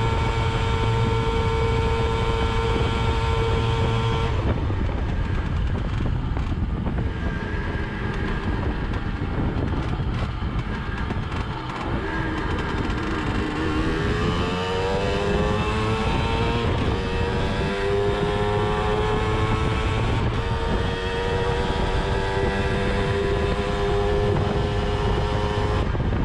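Simson S51 moped's 50 cc two-stroke engine, running with a twin exhaust welded from two old headers. It holds steady revs at about 60 km/h, then drops back as the throttle closes and the moped slows. It then pulls up again with a rising pitch that dips briefly near the end before climbing once more. The rider finds the pull slightly weaker with the twin exhaust. Wind rushes over the microphone throughout.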